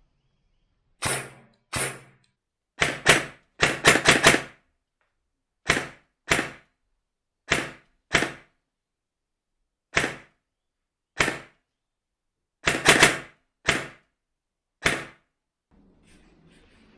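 Airsoft guns firing: about eighteen sharp reports at irregular intervals, some single and some in quick runs of two or three.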